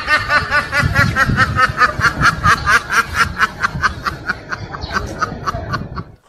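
Domestic ducks quacking in a rapid, unbroken run of about five quacks a second that stops abruptly near the end.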